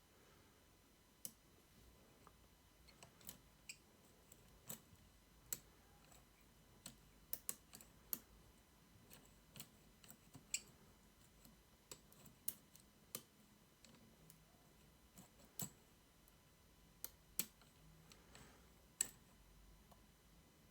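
Faint, sharp clicks at irregular intervals from a lock-picking tool working the pins inside a Mul-T-Lock Interactive cylinder.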